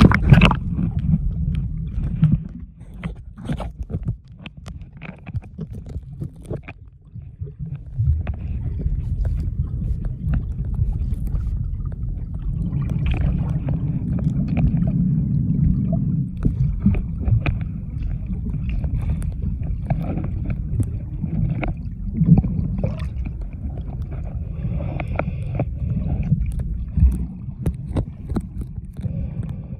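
Muffled underwater sound picked up by a submerged camera while snorkeling: a low, rumbling wash of water moving around the camera, with scattered clicks and crackles from bubbles and splashing.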